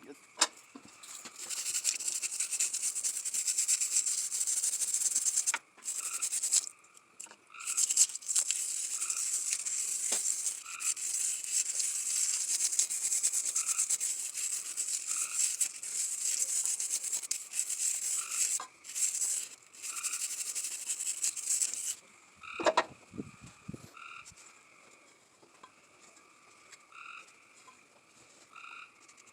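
Old gasket material and RTV being scrubbed off the thermostat housing mounting surface of a Chevy 250 straight-six: a steady, harsh abrasive hiss with a few brief pauses that stops about two-thirds of the way in, followed by a short knock. A short chirping call repeats regularly in the background.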